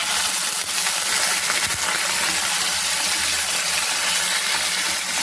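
Wet ground onion, garlic and ginger paste sizzling in hot oil in a nonstick pan as it is tipped in and stirred with a wooden spatula: a steady hiss with a few faint scrapes.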